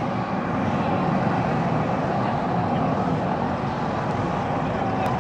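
Diesel engine of an aviation fuel tanker truck running steadily as the truck creeps slowly up to a parked aircraft.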